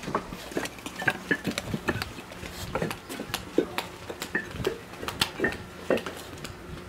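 Irregular light clicks, taps and clinks, about two to four a second, as an extension cord and its plug are handled and moved about.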